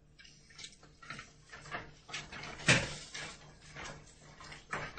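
A string of soft knocks and rustles about every half second, the loudest a duller knock near the middle.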